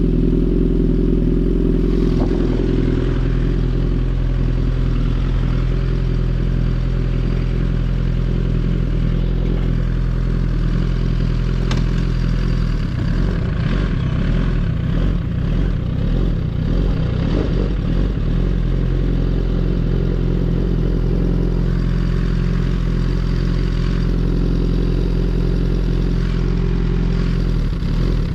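Suzuki GSX-R1000R inline-four on an M4 full exhaust system, running at a steady, unchanging engine speed. The note wavers for a few seconds midway.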